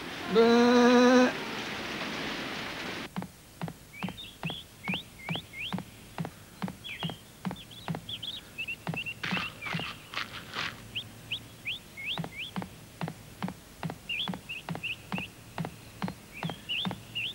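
Cartoon soundtrack: a short, wavering bleat near the start, over rain hiss that stops about three seconds in. Then birds chirping over a steady light ticking, about three ticks a second.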